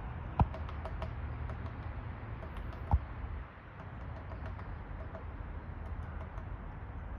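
Woodpecker pecking at a tree: irregular light taps, with two sharp, louder knocks about half a second and three seconds in, over a steady low rumble.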